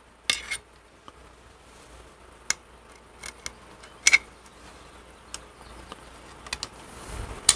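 Piston ring compressor's steel band and pliers clicking and clinking as they are handled and fitted together: about ten short, sharp metal clicks at irregular intervals, the loudest near the start and about four seconds in.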